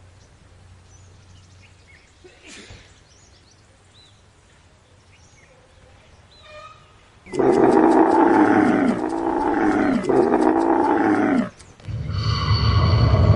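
A large animal's loud, drawn-out call with a bending pitch, starting about seven seconds in and lasting about four seconds, broken twice. Before it there are only a few faint chirps over a quiet background. Near the end a different loud, steady sound begins.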